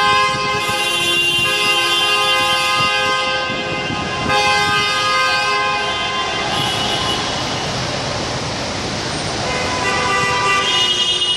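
Several car horns held down at once, long overlapping blasts at different pitches that shift as one horn stops and another starts, over the noise of road traffic.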